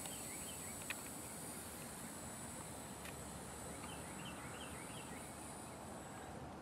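Faint, steady high whine of a Blade mQX quadcopter's small electric motors as it flies at a distance. A bird calls a quick run of repeated chirping notes at the start and again about four seconds in, and there is a single sharp click just under a second in.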